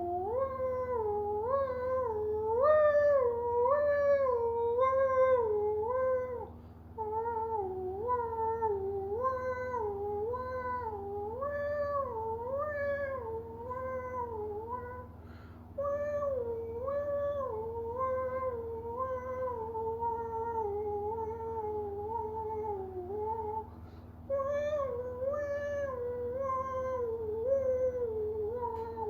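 A wavering pitched wail that steps up and down about once a second, in four long stretches separated by short breaks, over a steady low hum.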